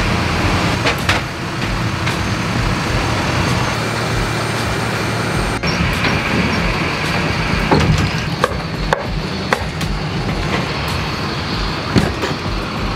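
Catering high-loader truck running steadily as its body lifts up to the aircraft door, a low mechanical drone. A few sharp knocks and clunks come in the second half.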